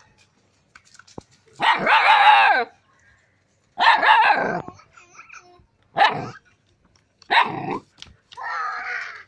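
A young dog barking at its own reflection in a mirror: five drawn-out barks, the first nearly a second long.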